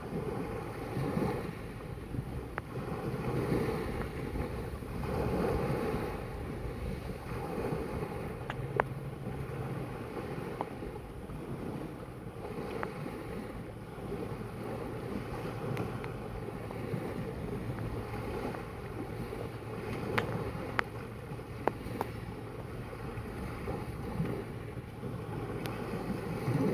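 Sea waves washing in, the noise surging every couple of seconds, with wind buffeting the microphone. A few sharp clicks stand out above it.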